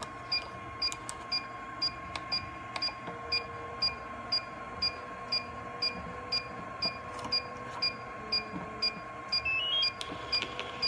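Electronic timer alarm of a progesterone-test incubation chamber beeping steadily, about three short high beeps a second, signalling that a test strip's 15-minute incubation is done. Near the end a short rising run of electronic tones and a brief buzz come from the analyzer and its printer.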